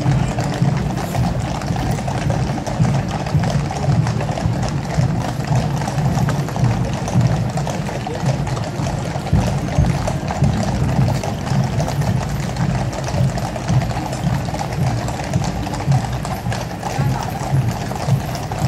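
Music playing steadily, with the clip-clop of a column of horses walking on the road.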